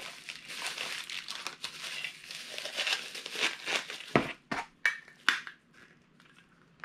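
Thin plastic bag crinkling and rustling as a vinyl figure is pulled out of its wrapping. About four seconds in it gives way to a few sharp separate clicks and knocks, then goes quiet.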